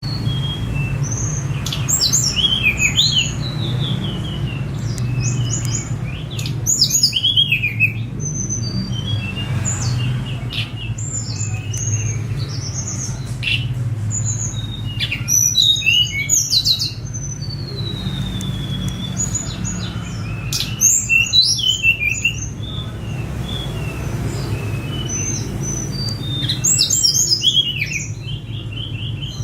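A tledekan gunung songbird singing a varied song of sharp chirps and quick buzzy phrases, with a long falling whistle about halfway through. A steady low hum runs underneath.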